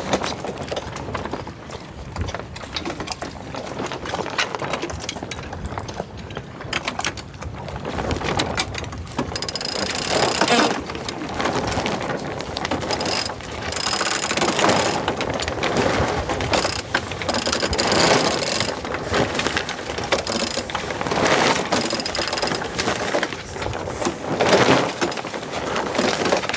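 Sailboat winch clicking on its ratchet as the mainsail halyard is cranked up, in repeated spells of cranking. It is softer for the first several seconds and gets louder about ten seconds in.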